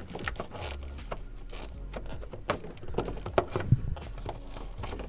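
A headlight's high-beam dust cover being fitted back over its port and twisted into place, giving a series of scrapes and clicks, the loudest a little past the middle.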